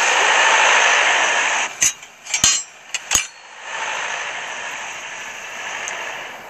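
Loud audience laughter dies away in the first couple of seconds, then three or four sharp metallic clinks follow, as of a crowbar and hammer knocking together in a bag. A softer, steady rush of noise follows.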